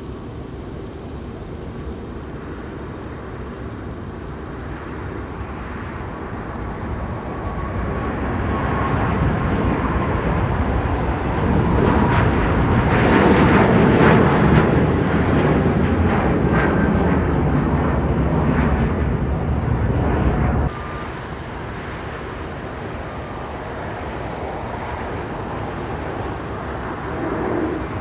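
Jet airliner passing close by: engine noise swells over several seconds to a loud peak, with a whine that slowly falls in pitch as it goes past. The sound cuts off suddenly about three-quarters of the way through, leaving a quieter steady rumble.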